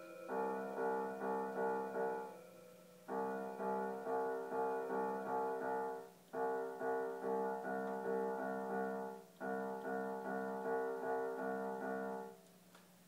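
Casio electronic keyboard played by hand: four phrases of notes struck about twice a second, with short breaks between the phrases.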